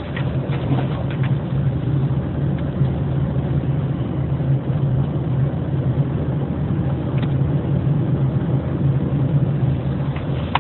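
Fiat Punto 2's 1.2 Fire four-cylinder petrol engine running steadily with an even hum, with a few faint clicks in the first second or so.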